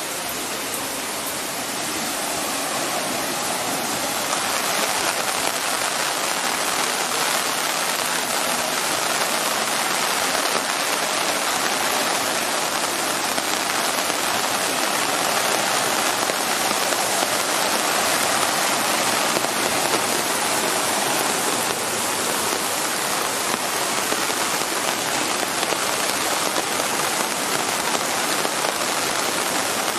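Rain falling steadily on pavement and a flooded street, a dense even hiss that gets slightly louder a few seconds in.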